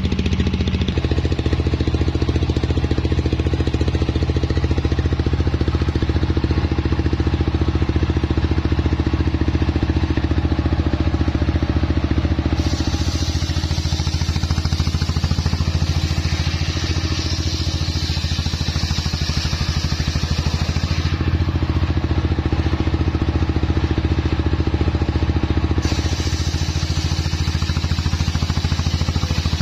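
Stationary engine running steadily, driving a homemade circular saw. About halfway in, the blade cuts lengthwise through a johar log with a high hiss for several seconds, stops cutting, then bites into the wood again near the end.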